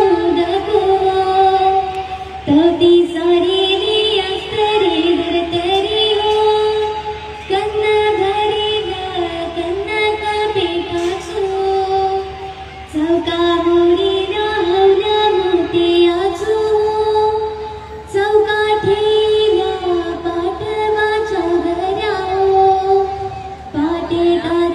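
A young female voice sings a traditional Agri-Koli dhavala, the folk song of Agri and Koli weddings. It moves in ornamented melodic phrases a few seconds long, with brief pauses between them.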